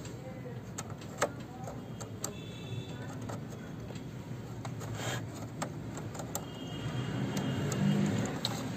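A few light clicks and taps from hands working on the opened inkjet printer's plastic parts, over a steady low background hum that grows a little louder near the end.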